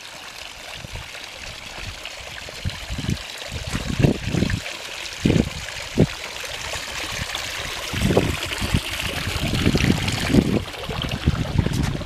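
A steady rushing hiss like running water, growing a little louder near the end, with irregular low thumps throughout.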